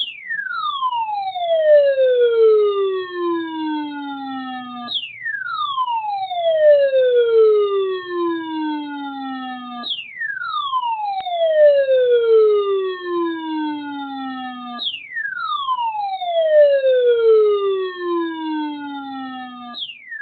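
Electronic siren-like tone that glides steadily down from a high pitch to a low one over about five seconds, then jumps straight back up and falls again, four times over.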